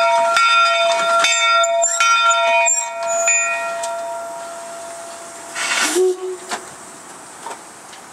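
Locomotive bell on the 1875 Baldwin 4-4-0 steam locomotive Virginia & Truckee No. 22 "Inyo" ringing, struck a little more than once a second, then left to die away about three seconds in. A short hiss comes about six seconds in.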